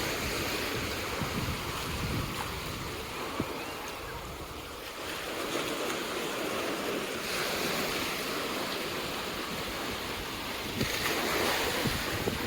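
Ocean surf washing onto a sandy beach, swelling and easing every few seconds, with wind rumbling on the microphone.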